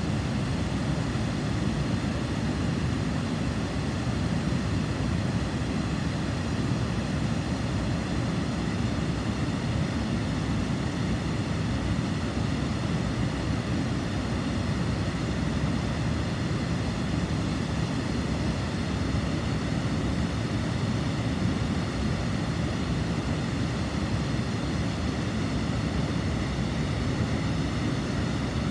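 River water pouring over a stepped weir: a steady, deep rushing roar of white water that does not change.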